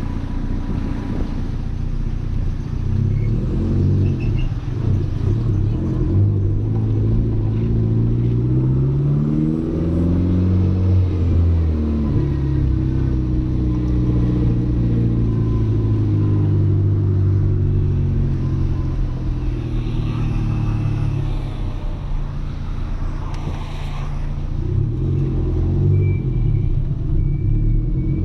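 Audi A3 1.8T's turbocharged four-cylinder engine under way, heard from inside the car, its pitch climbing under acceleration and falling back several times as it pulls through the gears.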